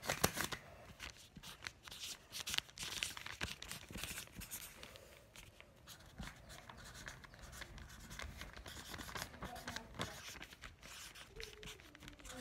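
Sharpie permanent marker scratching across a paper lunch bag as a name is written, in short irregular strokes, with a sharp knock right at the start.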